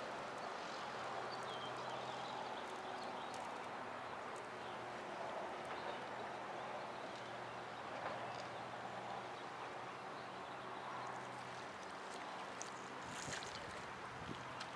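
Steady wash of water and wind noise, with a faint low hum underneath and a few sharp clicks near the end.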